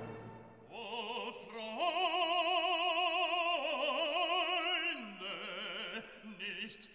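Operatic singing laid over the picture as background music: a voice holding long notes with a wide vibrato, stepping up and down between a few pitches.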